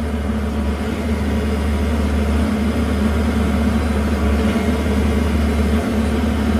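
Engine of the hydraulic power unit for a Roddie R8 pipe-bursting machine, running steadily at a constant pitch and growing slightly louder.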